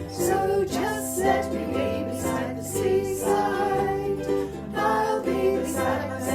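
Upbeat acoustic song with ukulele strumming chords, the chords changing every second or two.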